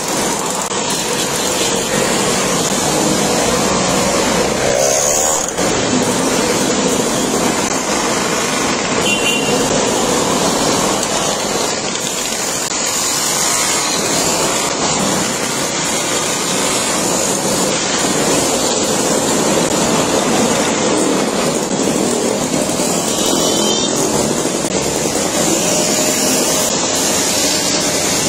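A column of small two-stroke mopeds (Mobylettes) riding past one after another, their engines making a steady, dense buzz. Now and then a single machine rises and falls in pitch as it goes by.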